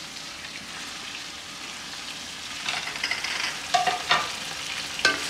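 Chicken pieces sizzling steadily as they fry in ghee with onions, tomatoes and green chillies in a large metal pot. A few short knocks and scrapes sound about three to four seconds in, and a sharp click near the end.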